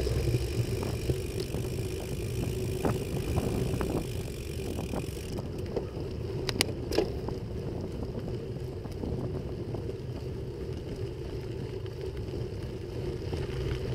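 Bicycle rolling along a dirt trail, picked up by a handlebar-mounted camera: a steady rumble of tyres and frame vibration with scattered small rattles, and two sharper clicks a little past halfway.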